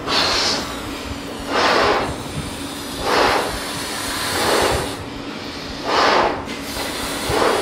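Two people blowing up rubber balloons by mouth: about five hissing puffs of breath forced into the balloons, roughly one every second and a half, over a faint steady hum.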